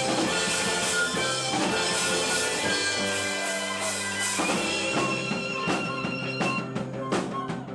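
Band music: sustained pitched instruments over a drum beat, with the drum hits standing out more in the second half.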